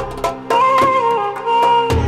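Recorded Arabic belly-dance music: a held, gently bending melody over regular hand-drum strikes. The low bass falls away a moment in and comes back just before the end.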